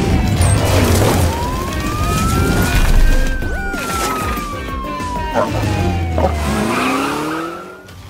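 A cartoon police siren wailing slowly, one tone falling, rising over about two seconds, then falling again, over background music with a steady low beat. A few short clanks and a rising sweep come near the end.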